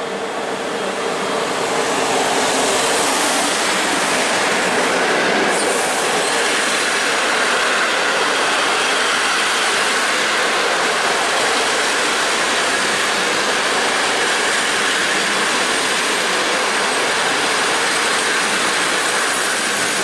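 An Intercity passenger train behind an EP09 electric locomotive arriving along a platform, the locomotive and then its coaches rolling past close by: a steady rush of wheels on rails that swells over the first two seconds and then holds.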